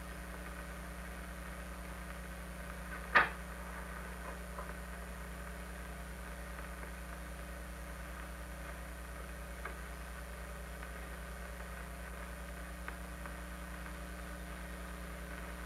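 Steady low hum and hiss of an old film soundtrack, with one sharp knock about three seconds in and two faint ticks later on.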